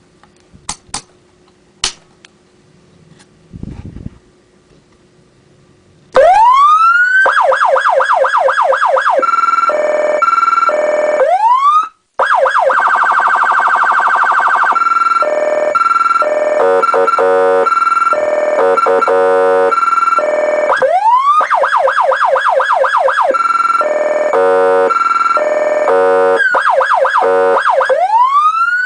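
Federal Signal Touchmaster Delta electronic siren cycling through its tones in sweep mode. It opens with a rising wail, then runs fast yelp sweeps, rapid warbles and stepped two-tone alternations, changing every few seconds, with a brief cut-out about halfway. Before it starts, a few sharp clicks and a low thump are heard over a faint hum.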